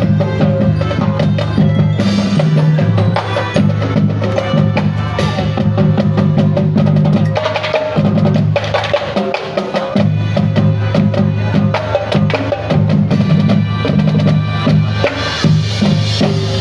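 Marching band playing: low held brass notes over a drumline of snare and bass drums.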